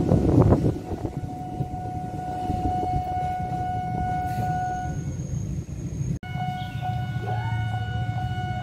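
Commuter electric train (ex-JR 205 series EMU) that has just passed close, its noise dropping sharply within the first second as it draws away, leaving a steady low rumble with a steady high whine over it. The sound cuts out for an instant about six seconds in, then the rumble and whine carry on.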